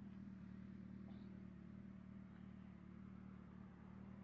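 Motorcycle engine running steadily, heard as a faint, even low hum.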